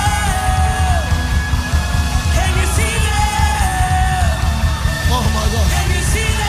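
Live worship band music with a heavy, steady low beat and a melody line that holds and slides down about every three seconds, with voices shouting over it.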